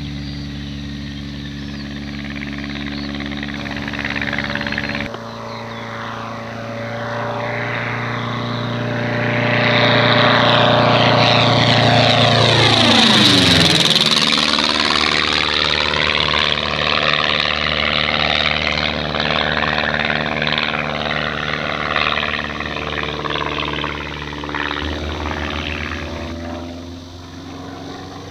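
Midget Mustang light aircraft's propeller engine at full power, climbing after takeoff. About halfway through it makes a fast low pass overhead: the engine note swells to its loudest and drops in pitch as it goes by, then fades as the plane banks away.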